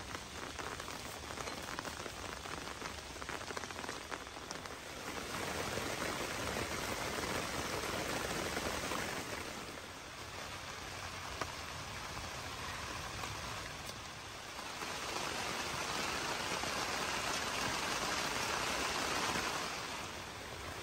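Steady rain falling on a tent, growing heavier twice, about five seconds in and again about fifteen seconds in.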